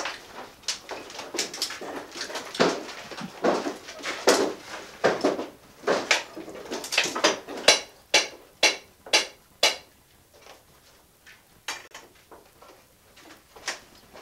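Hammer blows on wood and nails during demolition work. They are irregular at first, then settle into a steady run of about two strikes a second that stops about ten seconds in, with a few faint knocks after.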